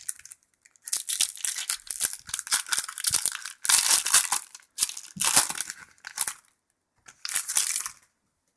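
A trading card pack's wrapper being torn open and crinkled in the hands: a long stretch of crackling, rustling tears, then one shorter crinkle near the end.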